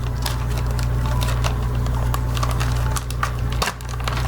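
Handling noise from bagged soft-plastic fishing baits: scattered small crinkles and clicks of plastic packaging over a steady low electrical hum.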